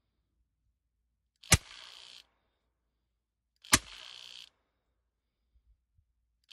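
Drozd Blackbird air rifle on 2000 psi air, firing two single shots about two seconds apart at around 1,100 feet per second. Each shot is a sharp crack followed by a short hiss that cuts off.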